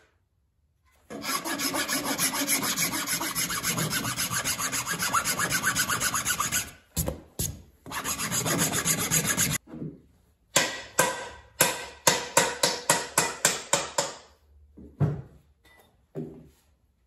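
A rasp scraping back and forth on an ash axe handle, shaping the wood in long continuous stretches. About ten seconds in it changes to short separate strokes, about four a second, with a faint ring.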